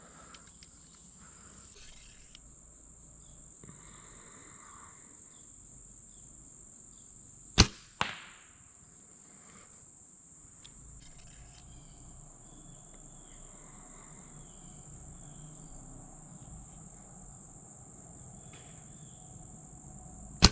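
Compound bow shot from a tree stand: the sharp crack of the bowstring release, then under half a second later the thud of the arrow striking the target bag; a second shot cracks off right at the end. A steady high-pitched insect drone runs underneath.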